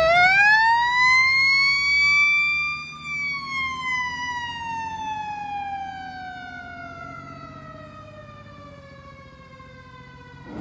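Fire engine siren wailing: one long rise in pitch over about three seconds, then a slow fall, growing fainter as the truck drives away.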